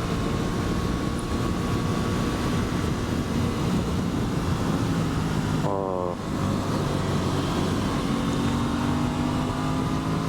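Aprilia Tuono 660's parallel-twin engine running under way, with steady wind and road rush. About six seconds in, the note briefly rises in pitch and changes, as in a gear shift, then settles back to a steady drone.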